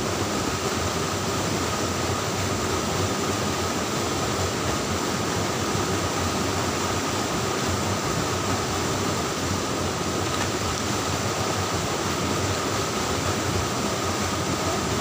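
Steady rush of stream water pouring over rocks into a pool, an even hiss that holds the same level throughout.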